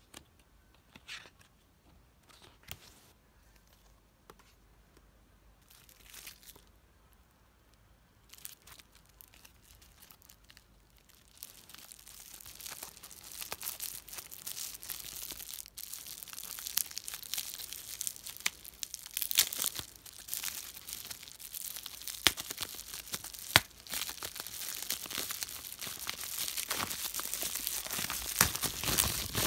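A few faint soft handling sounds at first, then, from about a third of the way in, continuous loud crinkling of plastic bubble wrap being pulled and unwrapped by hand, with sharp crackles throughout.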